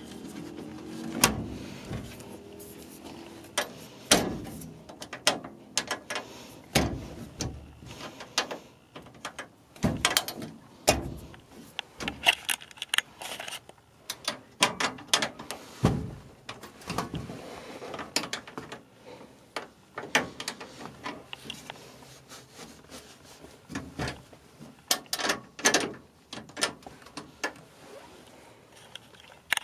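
Irregular knocks and clicks of things being handled and moved about, a few of them sharp and loud, with a mechanical rattle between them.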